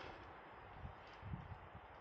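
Faint footsteps with rustling, a few soft low thumps over a steady hiss.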